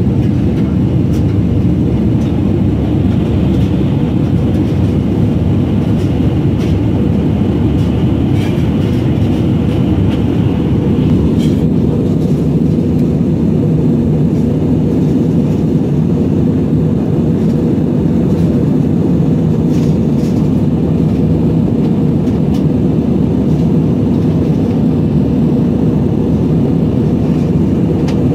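Steady in-flight cabin noise of an Airbus A320-family jet airliner: a loud, even, low rumble of engine and airflow that holds at one level throughout.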